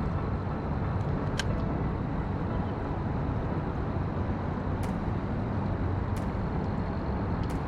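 Steady rush of river water through the whitewater park, an even roar heaviest in the low end. A few faint sharp clicks stand out over it about a second and a half, five, six and seven and a half seconds in.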